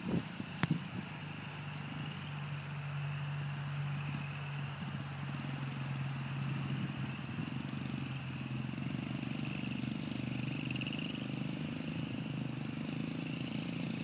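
Honda CRF70 dirt bike's small single-cylinder four-stroke engine running steadily in the distance as it rides a dirt track, with a slight waver in pitch and a higher whine over the engine note.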